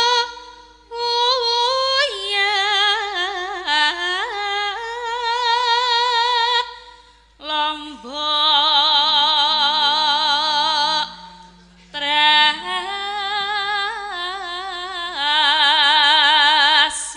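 A sindhen, a female Javanese gamelan singer, singing through a microphone. She holds long, wavering notes in phrases a few seconds long, with short breaks about a second in, about seven seconds in and about eleven seconds in.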